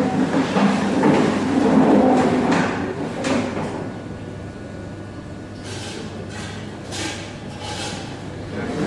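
Fast-food restaurant counter ambience: a steady equipment hum with kitchen clatter and scattered knocks, busiest in the first few seconds.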